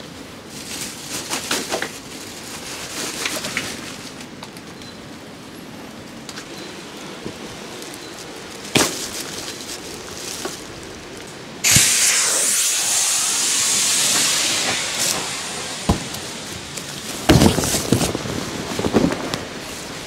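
Air hissing out of an inflatable tent's air beam as it is deflated, starting suddenly with a click a little past halfway and fading after about three seconds. Rustling and knocks of the tent fabric being handled and folded, loudest near the end.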